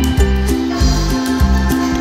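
Music with a steady beat and low plucked notes repeating in a regular rhythm.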